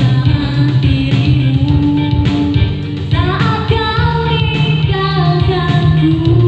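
A woman singing into a microphone, amplified through a PA, over a Yamaha keyboard accompaniment playing a steady bass line, chords and a regular beat.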